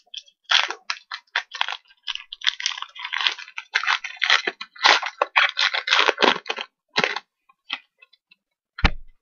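Foil trading-card pack wrapper being torn open and crumpled by hand close to the microphone, a dense run of crinkling rustles that thins out after about 7 s. A single sharp thump comes just before the end.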